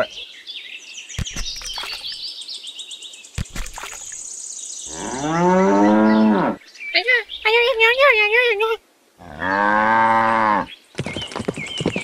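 Cow mooing twice, each a long call of a second or more that rises and falls, one about five seconds in and the other near ten seconds in. Between them comes a high, wavering cartoon-like voice, and in the first few seconds there are squeaky high chirps and a couple of sharp clicks.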